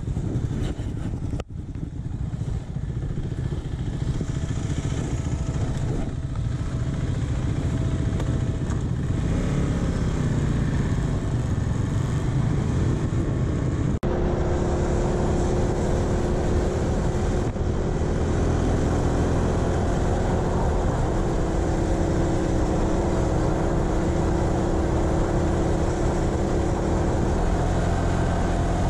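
KTM 390 Adventure's single-cylinder engine pulling away on a gravel road, then, after a cut about halfway through, running steadily at cruising speed, with a steady hiss of wind over the engine note.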